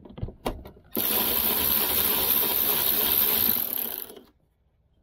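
Power ratchet spinning a socket on a long extension for about three seconds to back out a bolt on a Prius high-voltage battery pack, then stopping suddenly. A few light clicks of the socket and extension come just before it starts.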